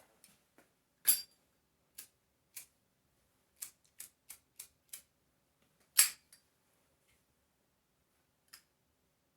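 Metal clicks and clinks of a Zippo lighter being flipped open and shut: two loud, ringing clacks about a second in and again about six seconds in, with a run of lighter clicks between them and one more near the end.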